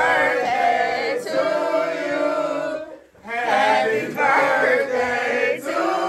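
Several voices singing together, with a short break about three seconds in.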